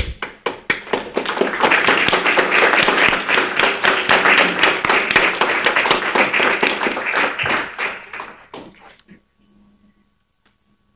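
Audience applauding: a few scattered claps at first, swelling into full applause within about two seconds, then thinning out and dying away about nine seconds in.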